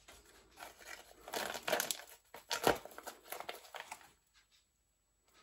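Plastic vacuum-sealer bag crinkling as it is handled and pulled out of the sealer, in irregular rustles that stop about four seconds in.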